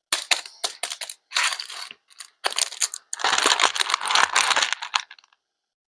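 A quick run of clicks and short crackling bursts, then about two seconds of denser crackling and rustling that stops abruptly.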